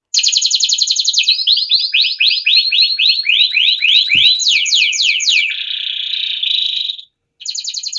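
Canary song: fast whistled trills of rapidly repeated notes, each phrase a run of quick downward-sweeping notes, changing to a buzzy stretch, then breaking off briefly and starting again near the end.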